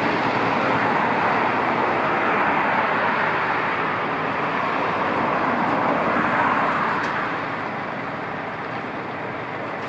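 Heavy-haulage truck pulling a multi-axle transport trailer slowly past: the steady noise of its engine and rolling tyres, dropping a little after about seven seconds.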